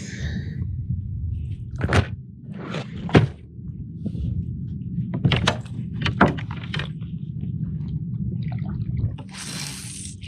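Several sharp knocks and clatters of fishing gear being handled against a kayak, bunched in the first and middle parts, over a steady low rumble, with a rush of hissing noise near the end.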